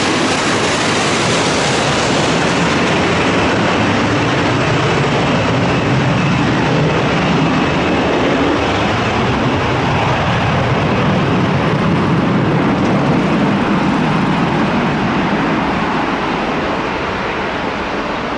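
Boeing 787 jet airliner engines running loud and steady as the aircraft lands and rolls out on the runway. A deep rumble swells midway through, then eases near the end.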